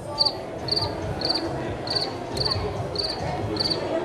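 Cricket chirping: short, high, pulsed chirps repeating evenly about twice a second.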